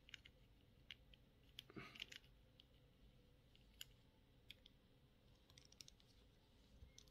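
Faint, scattered clicks of small plastic building bricks being handled and pressed together, irregular and a second or so apart; otherwise near silence.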